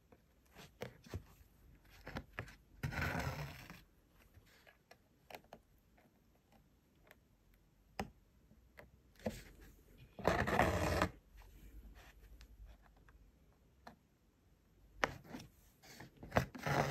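Hand embroidery: a needle pricking through fabric stretched in a wooden hoop and a strand of wool drawn through it, heard as small scattered ticks and two louder pulls of about a second each, about three seconds in and about ten seconds in.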